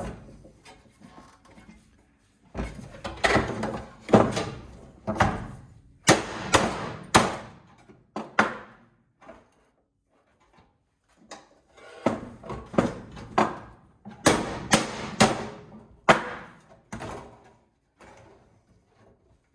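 Pressed-steel parts of a gas instant water heater being worked loose by hand and tool: irregular clusters of sharp metal knocks and clanks, with a quiet pause about halfway through.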